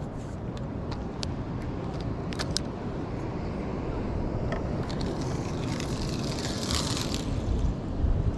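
Steady low rumble of wind and ocean surf, with a few sharp clicks from handling the spinning rod and reel. A hiss swells about five seconds in and fades near the end.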